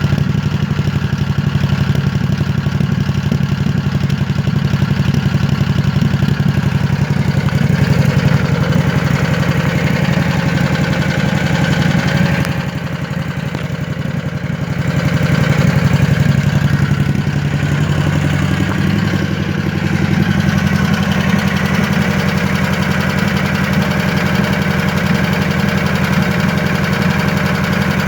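Scag V-Ride mower engine idling roughly with an intermittent pop, a misfire kind of sound. The level drops for a couple of seconds about halfway through, then comes back up.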